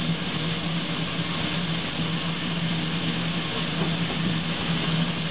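Manning Wardle 0-6-0 saddle-tank steam locomotive standing in steam: a steady hiss of escaping steam over a low, steady hum, with no exhaust beats.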